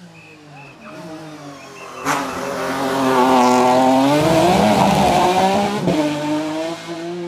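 Race car engine coming up to a hairpin: the engine note falls as the car brakes and changes down, then rises sharply as it accelerates out of the bend with some tyre noise. A sharp crack sounds about two seconds in, and the engine note settles and fades as the car climbs away.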